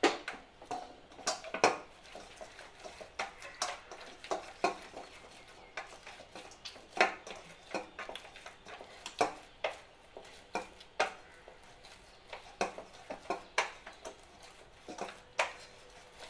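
Yeast dough being worked by hand in a bowl with a little oil: irregular knocks and clinks of the bowl, roughly one or two a second.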